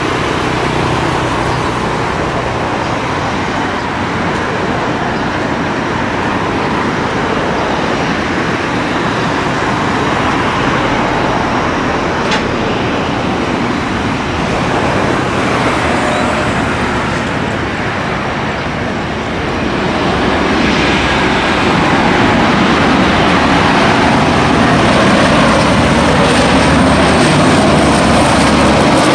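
Lockheed C-130 Hercules' four turboprop engines on landing approach: a steady drone that grows louder about two thirds of the way through, with a high thin whine coming in near the end as the aircraft nears touchdown.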